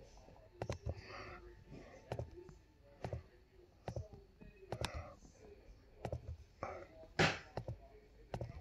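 Irregular clicks of a computer mouse, spaced about a second or less apart, with faint voices in the room and one short, louder rush of noise near the end.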